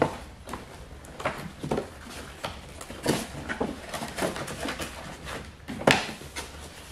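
Cardboard box handling: scraping, rustling and small knocks as the printed outer sleeve of a coffee-machine box is slid off the plain inner carton, with one sharp knock shortly before the end.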